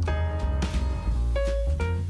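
Instrumental background music with a strong, steady bass line under changing melodic notes.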